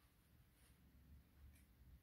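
Near silence: faint room tone, with two faint soft ticks.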